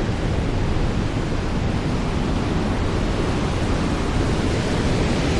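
Mistaya River rushing through its rock canyon: a steady, even noise of fast white water.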